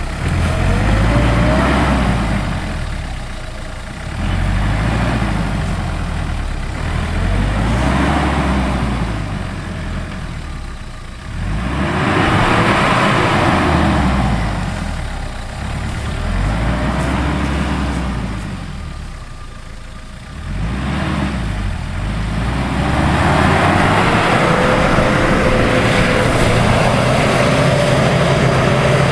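Hyundai Galloper 4x4's engine revving up and easing off again and again as it drives over rough grassy ground, with the pitch rising and falling several times.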